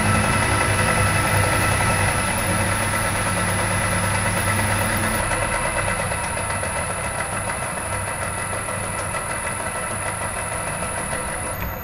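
Metal lathe running under power while a twist drill held in the tailstock chuck is fed into the spinning workpiece: a steady machine hum with a high whine, slowly getting quieter. Near the end the lathe is switched off and the whine cuts out.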